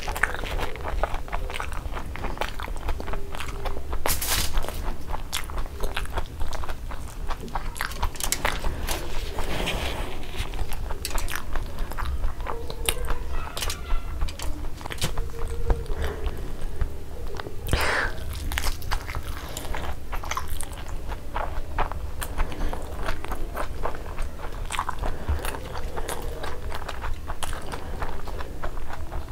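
Close-miked chewing and biting of fried sunny-side-up eggs: wet mouth clicks and smacks with soft crunches from the crisp fried edges, going on unevenly throughout.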